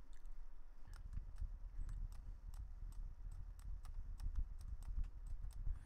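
Faint, irregular clicking of a computer mouse, a few clicks a second, over a low background rumble that comes up about a second in.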